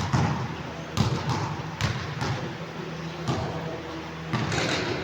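Basketball bouncing on a court floor: a series of irregularly spaced thuds, roughly one every half second to a second.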